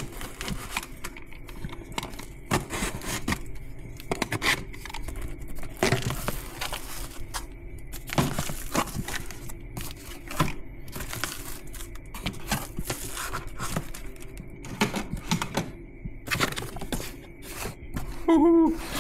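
A cardboard package being cut and torn open by hand, with its packing crinkling, and irregular tearing, scraping and clattering throughout.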